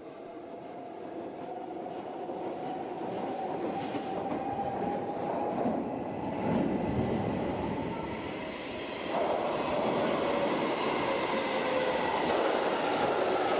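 Subway train running, a dense rumble that grows louder, with a motor whine slowly rising in pitch and a sudden step up in loudness about nine seconds in.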